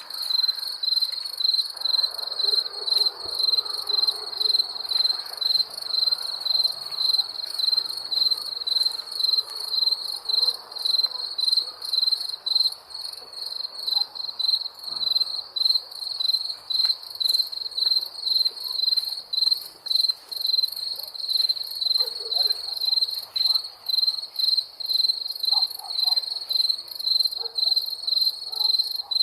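Crickets chirping in a steady, evenly repeated high-pitched trill that runs without a break, with a fainter, higher chirping behind it.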